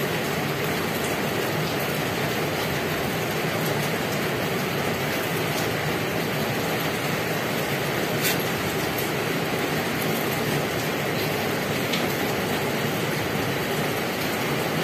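Steady, even hiss of background noise, with a few faint clicks.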